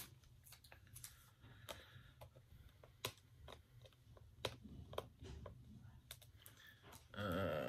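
Fingernails picking at and peeling a top sticker off a plastic Blu-ray case: faint, irregular little clicks and scratches.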